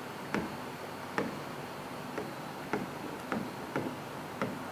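Stylus pen tapping and pressing on the glass of an interactive touchscreen display while handwriting: about seven light taps at uneven intervals over a steady faint hiss.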